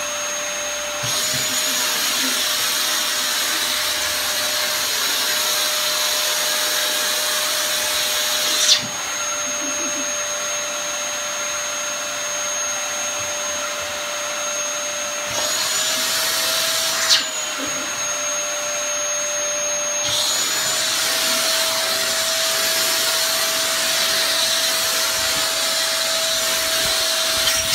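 Canister vacuum cleaner running with a steady rush of air and a high whine. Its tone and loudness shift a few times as the nozzle is moved about, and there are two brief sharp knocks, about a third of the way in and a little past halfway.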